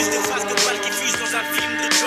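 Background music: long held notes over sharp percussive hits.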